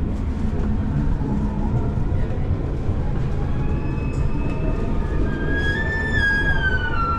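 Bergen light-rail tram heard from inside the car: a steady low running rumble. A pitched whine builds about halfway through and slides down in pitch near the end.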